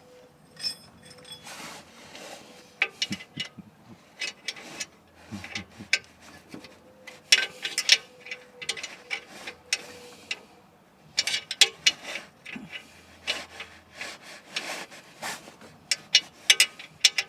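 Metal tools clinking, knocking and scraping against metal parts: an irregular run of sharp clicks and raps, busier and louder in the second half.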